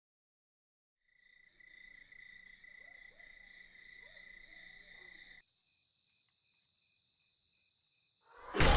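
Crickets chirping in a steady, pulsing night-time trill. About halfway through it gives way to a quieter, different insect chorus. Near the end a sudden loud rush of noise cuts in.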